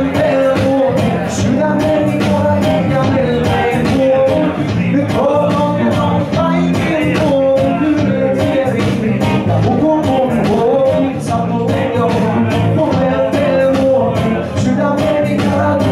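Live rock music played by an electric guitar and electric bass duo, with the bass player singing into the microphone.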